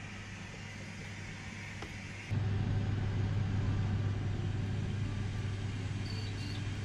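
Steady low hum of a caravan's wall-mounted air conditioner running, with a cut about two seconds in after which it is louder.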